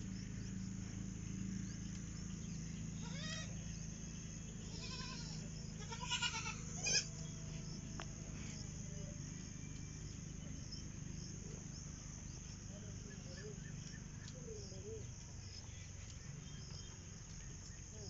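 Goats bleating: a few short, wavering calls about three to seven seconds in, the loudest near the seventh second.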